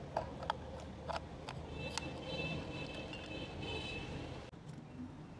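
Light metal clicks and clinks as the steel planetary ring gear and clutch parts of a Toyota Hiace automatic transmission are fitted by hand into the case, over a steady low rumble. A high, steady tone of several notes sounds for about two seconds in the middle.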